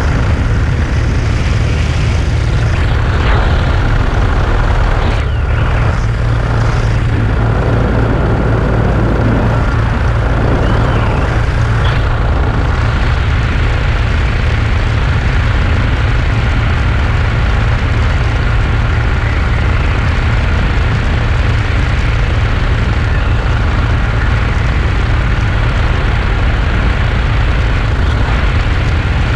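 Steady drone of a small aircraft's engine and propeller in flight, with wind rushing over the camera microphone. A thin steady whine runs above the low rumble.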